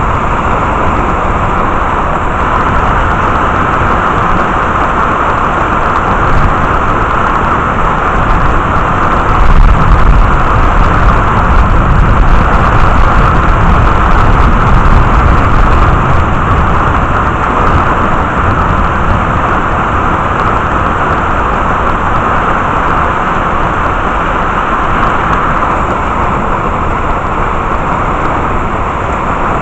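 Heavy rain falling steadily, with a low rumble of thunder swelling about ten seconds in and dying away by about sixteen seconds.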